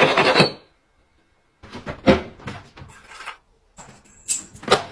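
Household clatter: a short rustling burst, a second of silence, then a series of knocks and clicks, with a brief high tone near the end.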